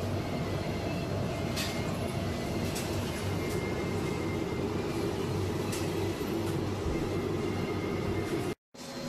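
Steady low rumbling hum of background noise, with a few faint ticks, cut off by a brief dropout near the end.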